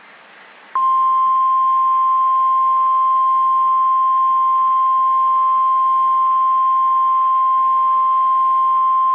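NOAA Weather Radio single-tone warning alarm at 1050 Hz, one loud steady beep that starts about a second in and holds without a break, signalling that a severe thunderstorm warning is about to be read. Faint radio hiss sits under it.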